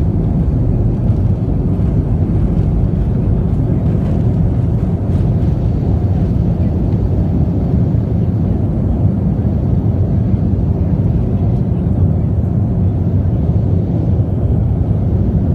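Airliner cabin noise during the takeoff roll and lift-off: the engines at takeoff power give a loud, steady, low rumble that holds without a break.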